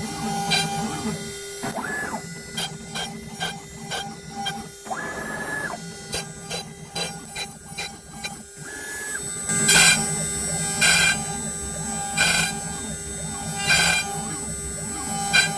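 CNC router at work: the router spindle runs steadily while the stepper motors whine up in pitch, hold and drop three times as the head moves between holes. Near the end comes a series of four louder bursts as the bit bores quarter-inch holes into the MDF.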